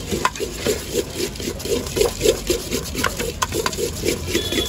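A steel spoon stirring and tossing a puffed-rice bhel puri mixture in a stainless steel bowl: rhythmic scraping and rustling at about three strokes a second, with a few sharp clinks of spoon on steel.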